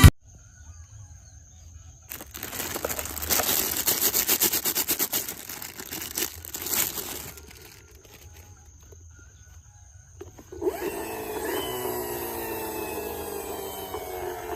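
Crackling, rattling noise full of small clicks for about five seconds, typical of plastic toys being handled. From about ten seconds in, a steady whirring starts whose pitch slowly falls, like a toy vehicle's motor or electronic sound effect.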